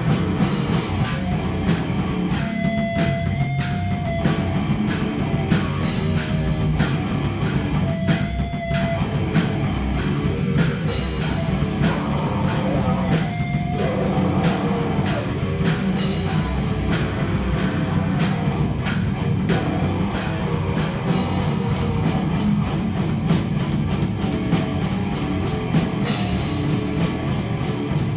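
A rock band playing live and loud in a heavy-metal style: a drum kit hit hard in a fast, steady beat under distorted electric guitar, with a few long held notes in the first half.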